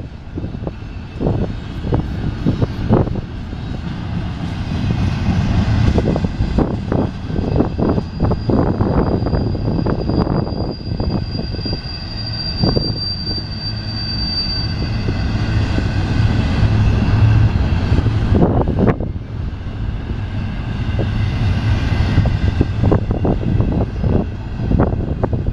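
Empty intermodal well cars of a BNSF freight train rolling past: a steady rumble of steel wheels on rail with repeated clicks and clunks. A thin, high squeal rises from about 8 seconds in and fades out at around 15 seconds.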